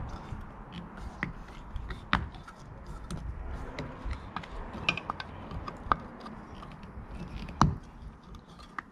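Scattered plastic clicks and knocks as a hand pries a snap-on yellow cover off a Baja Designs Squadron Pro LED light, with the sharpest knock about three-quarters of the way through.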